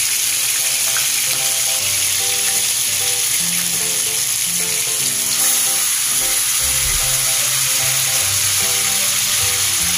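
Pieces of simmered chicken adobo frying in bubbling butter and oil in a nonstick pan: a steady, dense sizzle. This is the browning stage of dry-style adobo.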